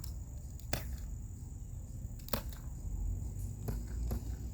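Novritsch SSX-23 spring-powered airsoft pistol firing from a distance: sharp snaps, the two loudest about a second and a half apart, with two fainter clicks near the end.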